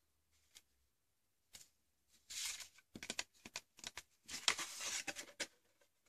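Cardstock rustling and scraping under the hands as it is pressed flat over strips of double-sided tape and then lifted and folded. The first couple of seconds hold only a few faint clicks; the irregular rustling starts about two seconds in.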